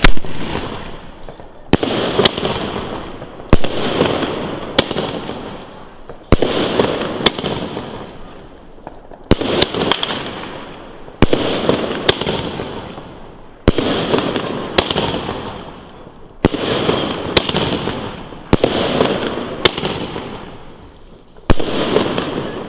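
Pyroweb Havana 2.0 firework battery firing shot after shot: a sharp bang about every second to second and a half, each followed by a hiss that fades away before the next shot.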